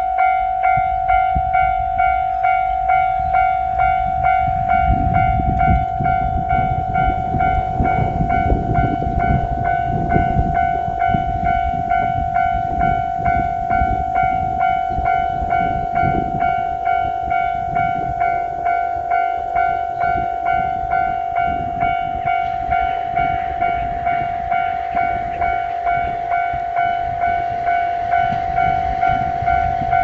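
Japanese level-crossing warning bell ringing at about two strikes a second, a steady electronic 'kan-kan' tone that signals that a train is approaching. A low rumbling noise rises under it for several seconds in the middle.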